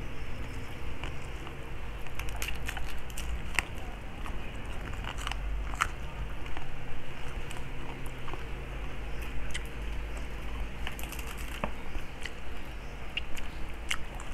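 Close-up chewing and crunching of crispy deep-fried pork knuckle skin, with irregular sharp crackles, over a low steady hum.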